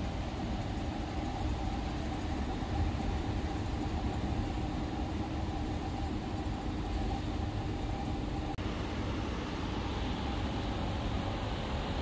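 Midea inverter air conditioner's outdoor condensing unit running, its AC condenser fan motor spinning the fan with a steady hum and rush of air. The fan is running again on a replaced fan capacitor, the faulty one having left it stalling and unable to restart.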